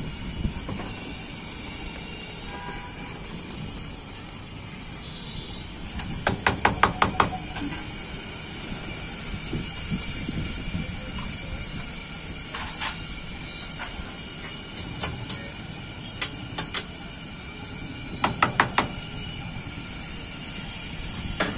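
Hot dosa griddle hissing steadily as batter is spread on it. Twice, about six seconds in and again near the end, comes a quick run of six or seven sharp metallic taps, with a few single clicks in between.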